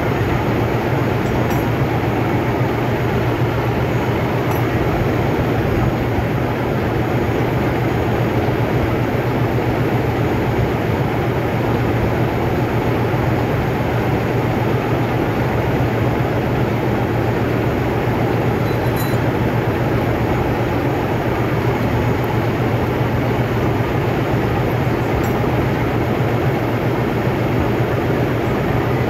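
Loud, steady drone of running heavy machinery with a strong low hum.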